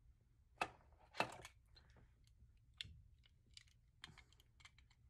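Faint, scattered clicks and taps of plastic sunglasses frames being handled and settled on the face, the two sharpest about half a second and a second in.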